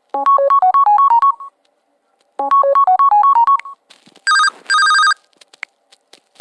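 LG Stylo 4 smartphone playing ringtones through its speaker: a short phrase of quick notes, played twice, then a brief double ring.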